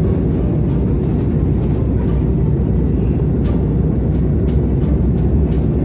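Steady in-flight cabin noise of an airliner: engine and airflow rumble, heaviest in the low end, heard from a window seat.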